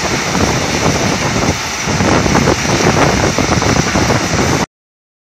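A Mercedes-Benz dump truck tipping its load of rock into a crusher's feed hopper: a loud, continuous rumble and clatter of stone sliding off the raised bed, with the truck's diesel engine running. It cuts off suddenly about four and a half seconds in.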